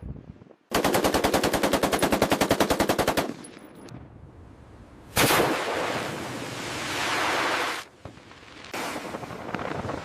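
A burst of rapid automatic gunfire, many shots a second for about two and a half seconds, stopping abruptly. About five seconds in comes a second sudden loud rushing blast that fades over a couple of seconds and cuts off, and irregular noise follows near the end.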